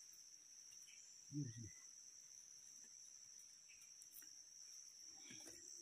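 Near silence under a faint, steady high-pitched drone of insects, with a brief voice about a second and a half in.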